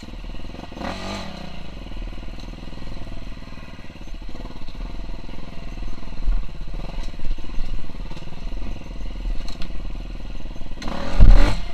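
KTM 350 SX-F dirt bike's single-cylinder four-stroke engine running at low revs, its pitch wavering. It surges briefly about a second in, and there is a sudden loud blast near the end.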